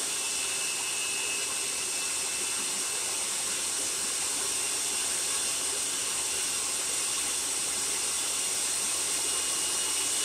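Food processor motor running steadily, cutting flour into vegan butter and shortening for pie dough; a constant whir with a bright hiss.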